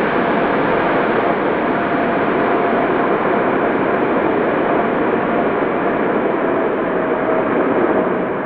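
Jet engines of a large twin-engine airliner running loud on the landing roll over a snowy runway, a steady roar with a faint tone that slowly sinks in pitch. The exhaust is blasting snow up off the runway.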